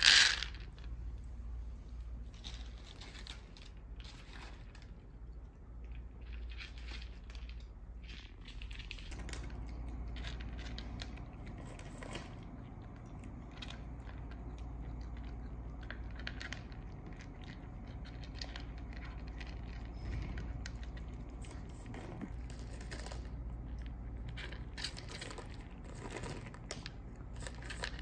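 Dry kibble clattering onto a plastic plate at the very start, then a cat crunching dry kibble, a run of faint irregular crunches and clicks against a low steady hum.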